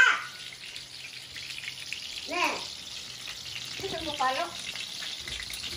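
Daing na bangus (marinated milkfish) frying in oil in a pan over a wood fire: a steady sizzle that grows louder and brighter toward the end. A few short voice snippets come over it.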